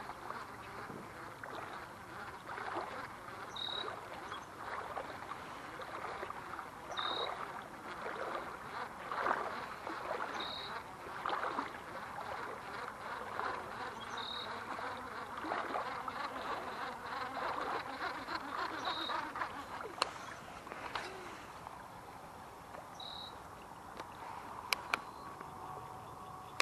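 A bird repeats one short, high call about every three to four seconds over a steady rustling outdoor background, with a couple of sharp clicks near the end.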